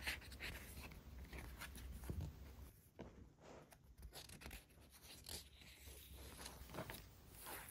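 Faint rustling and soft handling noises from a thin paperback picture book as its cover is opened and its pages are turned.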